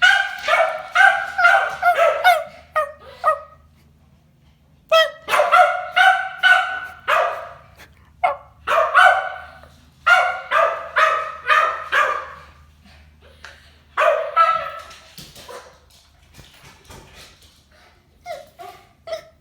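Dog barking in rapid volleys of several barks a second, with short pauses between volleys; the barks turn shorter and quieter near the end.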